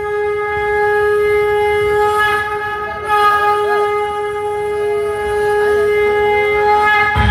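Conch shell (shankh) blown in one long, steady, unwavering note that stops near the end as drumming comes in.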